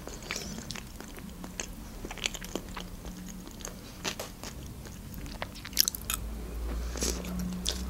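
Close-miked eating sounds: a person chewing a mouthful of olivier salad, with soft wet mouth clicks. A new forkful goes in about six seconds in, with a brief cluster of louder clicks.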